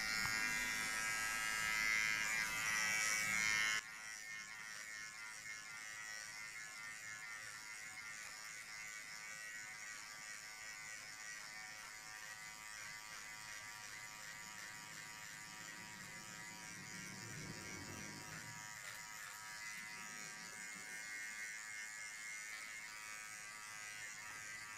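Xiaomi Enchen Sharp 3S cordless hair clipper running with a steady electric buzz while cutting hair at the side of the head. It is louder for about the first four seconds, then drops suddenly and runs on more quietly.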